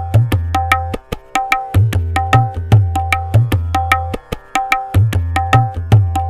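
Tabla playing a teentaal theka in fast drut tempo at 150 bpm, with the right-hand drum tuned to C. Quick, ringing right-hand strokes run over booming left-hand bass strokes, and the bass drops out briefly twice, about a second in and about four seconds in.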